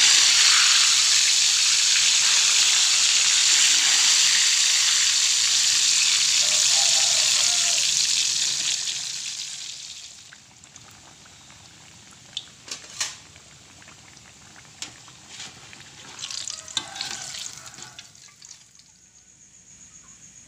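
Boiled cassava pieces deep-frying in hot oil in a wok: a loud, steady sizzle that fades away about halfway through. After that the frying is much quieter, with a few sharp clicks, and a faint steady high tone comes in near the end.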